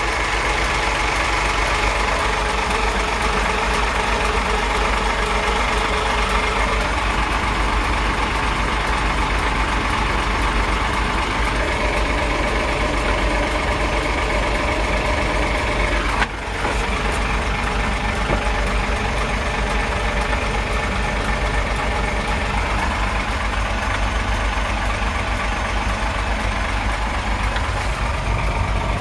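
A 40-foot boat's inboard engine idling with a steady hum, heard from inside the wheelhouse.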